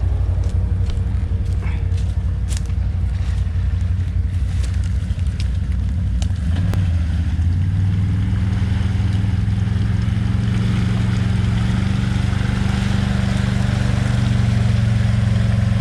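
ATV engine running as the quad rides a rough trail, with scattered knocks and clicks from the machine working over the ground during the first half. The engine note then settles into a steady run.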